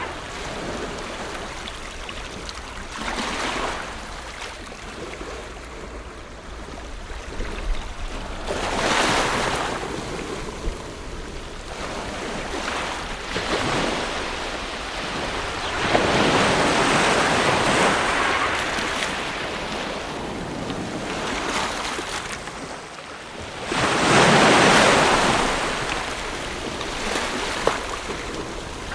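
Ocean waves breaking and washing up a shore, rising and falling in surges every several seconds, the biggest one about three quarters of the way through.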